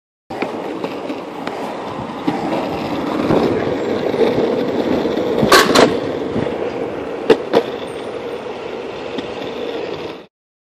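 Longboard wheels rolling over concrete pavement: a steady rumble, with a few sharp clacks about halfway through as the wheels hit seams in the concrete. It cuts off suddenly near the end.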